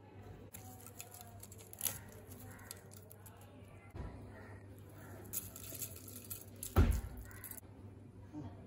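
Faint handling sounds as ingredients and a spoon go into an empty metal cooking pot: a few light clicks and one louder knock about two thirds of the way through. A low steady hum and faint voices sit in the background.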